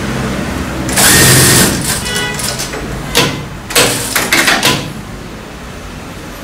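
Industrial lockstitch sewing machine stitching in short bursts: one run of under a second about a second in, then several quick stitch bursts a couple of seconds later.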